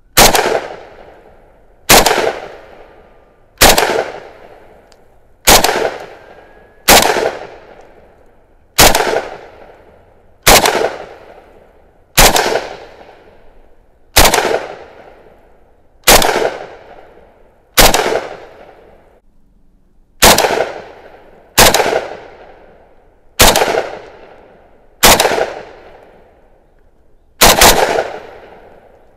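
Norinco NHM-91 semi-automatic 7.62x39 rifle fired in slow, steady single shots, about seventeen of them at roughly one every one and a half to two seconds. Each shot is a sharp crack that dies away over about a second.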